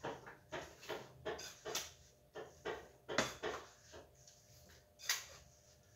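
Mason's trowel scooping dry, fine sand out of a plastic bucket and tipping it into a mason's bucket: a string of about a dozen short, irregular scrapes and swishes.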